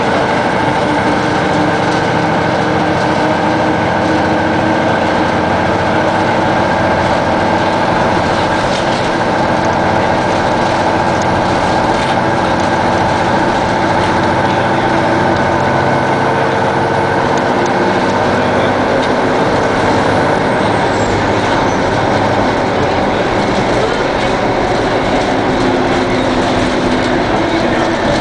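Detroit Diesel Series 60 inline-six diesel engine of a 2002 Neoplan AN-460 articulated bus running, a steady drone whose pitch drifts slowly up and down.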